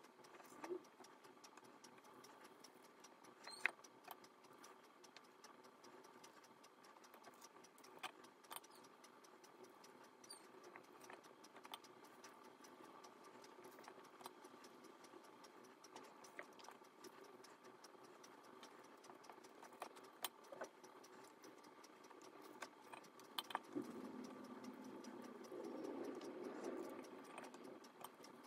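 Near silence over a faint steady hum, broken by occasional light clicks of a small plastic spoon against a stainless steel pot as sticky sesame-seed mixture is scooped and rolled by hand, with a soft rubbing sound near the end.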